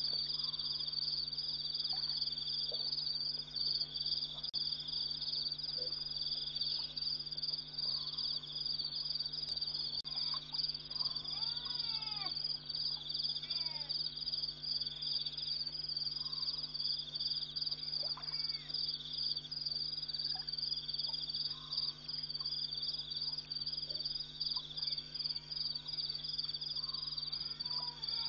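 Night chorus of insects, a steady high pulsing trill without a break, with a few short sliding calls about halfway through.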